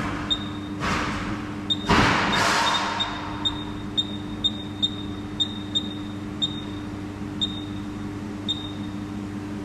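Short high electronic beeps at uneven intervals from a resistance spot welder's control keypad as the weld current setting is stepped up, over a steady machine hum. There are two brief hisses early on, the louder one about two seconds in.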